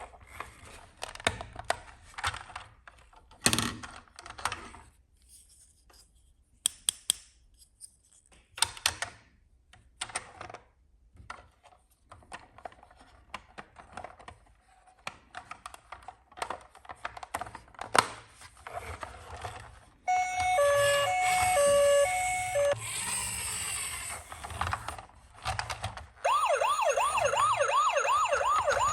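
Scattered clicks and knocks, then emergency-vehicle sirens: a two-tone hi-lo siren alternating between two notes for a few seconds, and near the end a fast yelp siren sweeping up several times a second.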